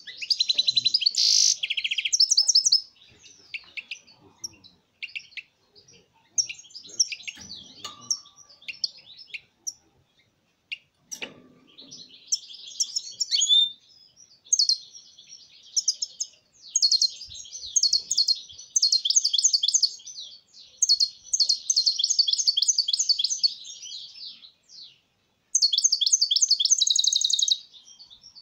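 European goldfinch singing: repeated phrases of fast, high twittering notes with short pauses between them, the longest phrases running several seconds in the middle and near the end.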